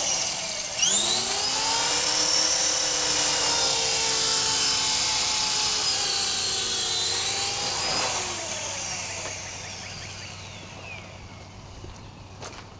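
Electric RC helicopter (CopterX 450 SE) motor and rotor whine, steady, with a sharp dip in pitch about a second in that climbs straight back. From about eight seconds in the whine falls in pitch and fades as the rotor spools down with the helicopter set down on the ground.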